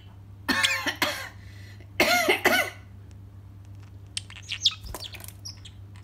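Parrotlet imitating a cough: two loud fake coughs about a second and a half apart, followed near the end by a few short chirps and clicks.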